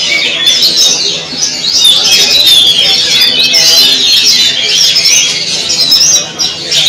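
Many caged songbirds singing at once in a contest, a dense, continuous chorus of overlapping rapid chirps, trills and whistled phrases.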